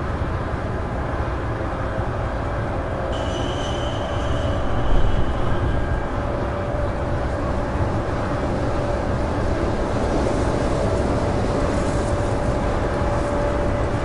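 Wind blowing steadily with a deep rumble. A high whistle comes in about three seconds in and fades a few seconds later, a gust swells briefly about five seconds in, and a lower steady whistle sets in near the ten-second mark.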